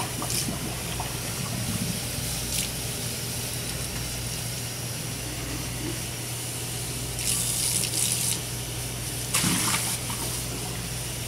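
Tap water running from a commercial faucet into a large glass jar and a stainless-steel sink as the jar is rinsed, with two louder gushing surges, about seven and nine and a half seconds in.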